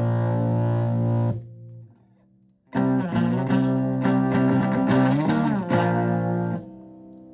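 Electric guitar through a treble booster pedal into a Fender Twin Reverb–style amp on the edge of breakup, slightly gritty. A held chord rings and is cut off about a second and a half in. After a brief pause comes a lick with string bends, ending on a quieter ringing note.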